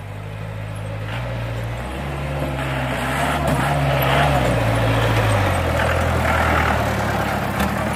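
Engine of a modified Mahindra off-road jeep driving down a rutted mud track and passing close by. The engine revs up, then drops back, and it grows louder as it approaches and is loudest around the middle.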